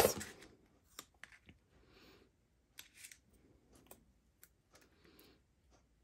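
Quiet paper-crafting handling sounds: a few short scratchy strokes of a tape runner laying adhesive, with light clicks and taps of small paper pieces on the desk.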